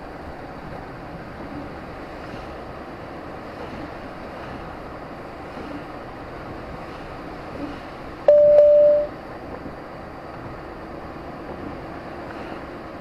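Steady road noise from a moving vehicle, with one loud single-pitched electronic beep lasting under a second about eight seconds in.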